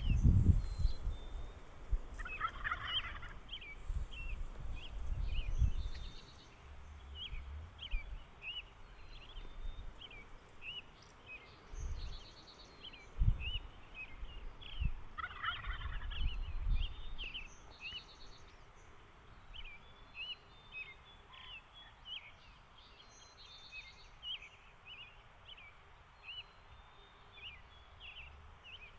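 Wild turkey gobbler gobbling twice, a few seconds in and again about halfway, over small birds chirping and intermittent low rumbles.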